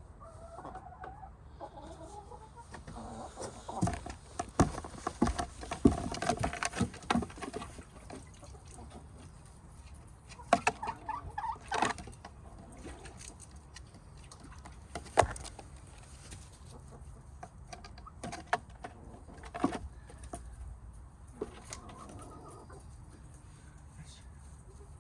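Domestic hens clucking softly, with clusters of sharp taps and knocks, loudest a few seconds in and again around the middle.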